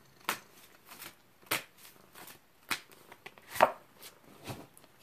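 A deck of tarot cards being shuffled and handled by hand: an irregular run of sharp card snaps and taps, about two a second.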